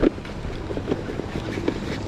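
A dry bag being folded and rolled shut by hand, giving a run of crinkles and rustles with a knock right at the start, over wind on the microphone.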